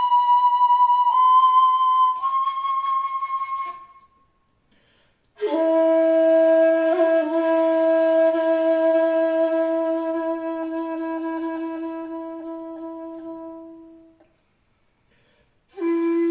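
Jinashi shakuhachi, a 2.1-length bamboo flute in B, played solo: a few higher notes stepping slightly upward that fade out, a pause, then one long low note held for about eight seconds and slowly fading. A new low note begins near the end.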